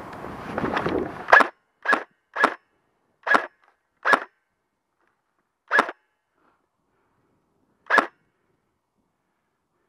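An airsoft gun firing single shots, seven short sharp cracks at uneven intervals, the first four close together and the last three more spaced out. A brief rustle of movement comes before the first shot.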